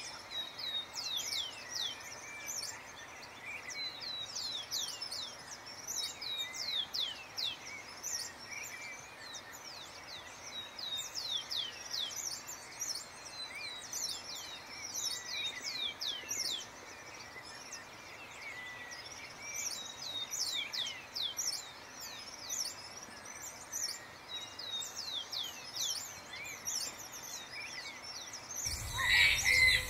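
Birdsong: bouts of quick, high notes that each slide downward, repeated every couple of seconds. Near the end, a louder, rougher sound cuts in.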